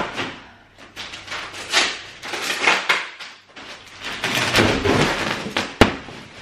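A roll-packed mattress in plastic wrap being unrolled and pushed flat onto a slatted bed frame: a run of rustling swishes of the plastic, with a sharp click about six seconds in.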